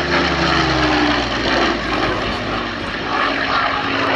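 Merlin-engined Second World War fighter flying past, its propeller engine running loud, with the engine note dropping in pitch during the first second or so as it passes.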